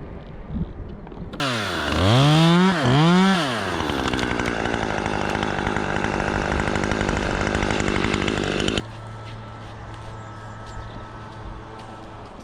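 Chainsaw comes in about a second in, revs up twice, settles to a steady idle and cuts off abruptly. A fainter steady engine hum carries on after it.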